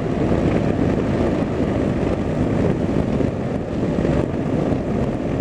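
Steady engine and road noise of a vehicle driving at speed, a constant low rumble and hiss with no distinct events.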